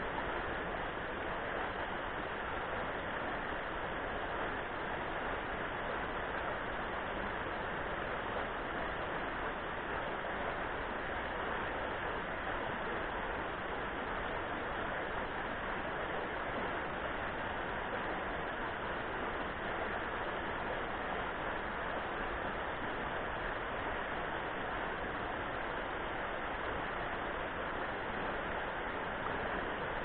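Shallow river rushing steadily over rocks in small rapids.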